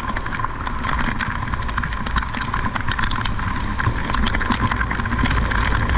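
Street traffic in the rain: a steady low rumble of vehicle engines with many sharp taps of rain throughout.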